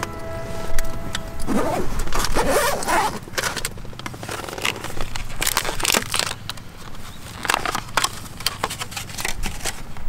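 A held chord of background music stops about a second and a half in. It is followed by irregular scraping, rustling and clicks of things being handled.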